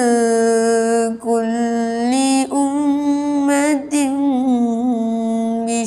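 A boy's voice chanting Quran recitation in tarannum style: long, held, melismatic notes that waver in pitch, broken by short pauses about one, two and a half and four seconds in.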